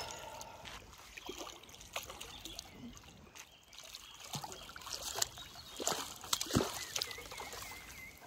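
Light, irregular splashing and trickling of water at the surface from a hooked carp being played in close to the bank on a fly rod.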